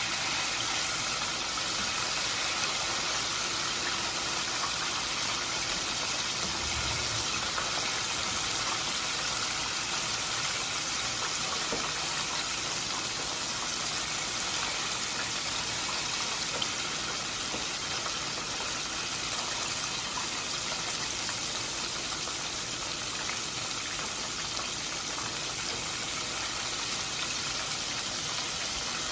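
Poultry frying in hot oil: a steady, even sizzle.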